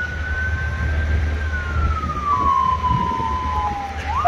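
Ambulance electronic siren on a slow wail: the tone holds high, glides slowly down, then sweeps quickly back up near the end, with a second steady lower tone sounding for a while in the middle. Low vehicle engine and road rumble underneath.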